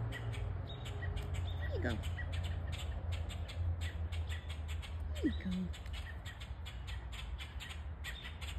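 Two short calls falling in pitch, about two seconds and about five seconds in, over a steady low rumble and faint rapid ticking.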